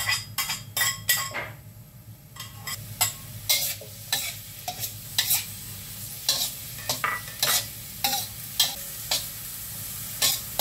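Chopped shallots and garlic frying in a stainless-steel wok, stirred with a metal ladle that clinks and scrapes against the pan every few tenths of a second. The sizzle comes up after the first couple of seconds as the aromatics are sautéed until fragrant.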